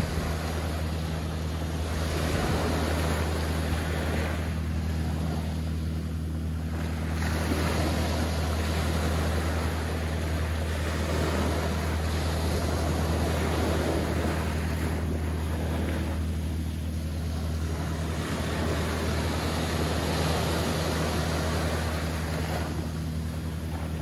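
Small, gentle ocean waves washing up a soft sand beach and drawing back, the surf noise swelling and easing every several seconds. A steady low hum runs underneath.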